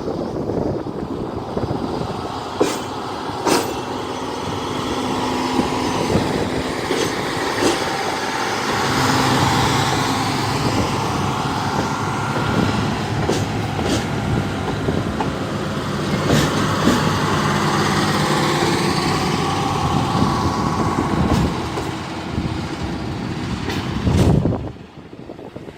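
Red Hen diesel railcars running, a steady engine drone with scattered sharp clicks; the sound drops away suddenly near the end.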